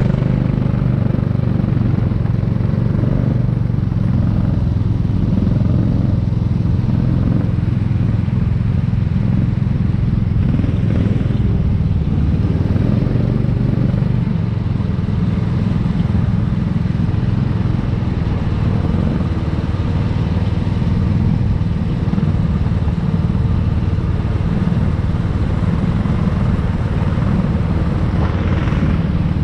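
Go-kart engine running steadily, heard from an onboard camera on the kart as it pulls away and rolls along the track at low speed.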